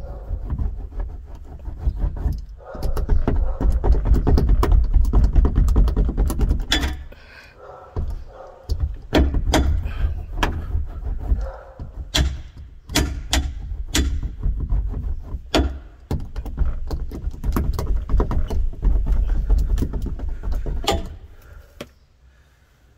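A metal hand roller is worked back and forth over asphalt-based sound deadener laid on a 2007 Chevy Tahoe's metal roof. It makes stretches of low rumbling a few seconds long that stop and start with each pass, with many sharp clicks and knocks.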